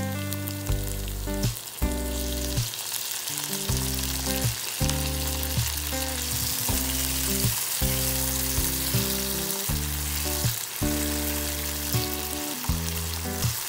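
Onion, carrot and chopped tomato sizzling steadily in hot oil in a frying pan, stirred with a plastic spatula near the end. Background music with held notes plays over the sizzle.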